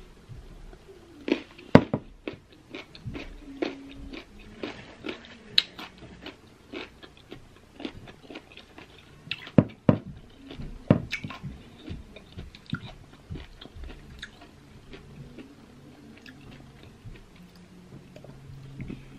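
Close-up crunching and chewing of raw green baby mango slices: crisp, sharp bites and wet chewing. The loudest crunches come about two seconds in and again around ten seconds, and the chewing thins out toward the end.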